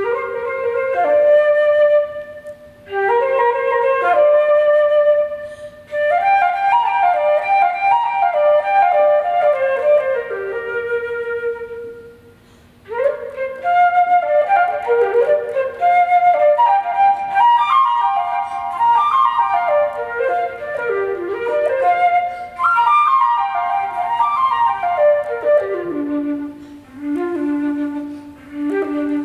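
Unaccompanied concert flute playing a classical piece: fast runs of notes rising and falling in phrases. It begins suddenly at the start, with short breath pauses about two seconds in and about twelve seconds in.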